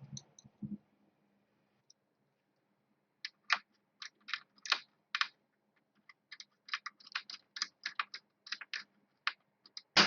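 Light, irregular clicks and taps from small screws and a screwdriver being handled while screws are fitted into a laptop's plastic case. A quiet stretch comes first, then the clicks grow more frequent.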